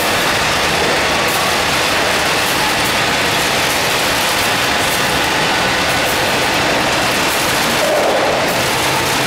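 Continuous nut fryer's mesh-belt discharge conveyor and its geared motor running with a steady mechanical noise, with a light patter of fried nuts spilling off the belt end into a stainless steel tank.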